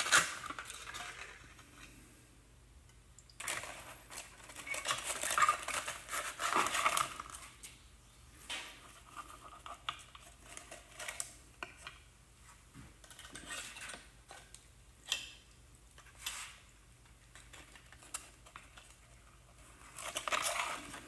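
Crumpled aluminium foil crinkling and rustling, with light clinks against a glass jar, as wads of foil are pushed into copper sulphate solution. The sound comes in scattered bursts with short pauses between them.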